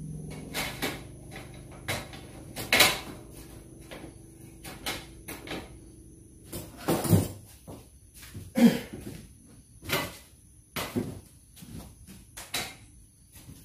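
Folding roll-up camp table being set up: its slatted top is unrolled and fitted onto the X-frame stand, giving a string of irregular clacks and knocks, the loudest about three seconds in and again near nine seconds.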